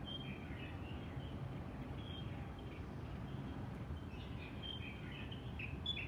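Small birds chirping in short, high calls: a few in the first second, one about two seconds in, and a busier run in the last two seconds, over a steady low rumble of city background noise.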